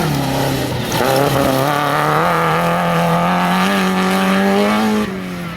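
Rally competition vehicle's engine pulling hard under acceleration: the note dips briefly about a second in, as at a gear change, then climbs steadily before the driver lifts off near the end.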